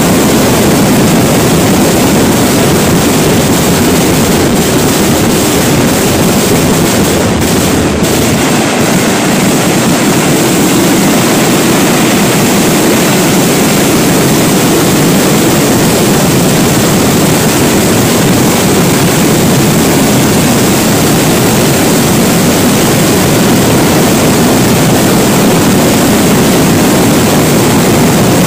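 Kerala temple fireworks (vedikkettu) going off in a dense, continuous barrage, the explosions so close together that they merge into one loud, steady roar with no separate bangs standing out.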